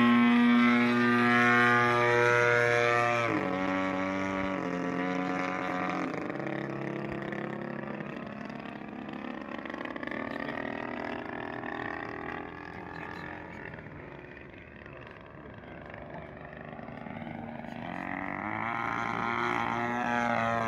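Radio-controlled Extra NG aerobatic model plane's engine and propeller running in flight. The note drops in steps as it is throttled back about three seconds in, fades as the plane flies off, then grows louder with a rising pitch near the end as it comes back.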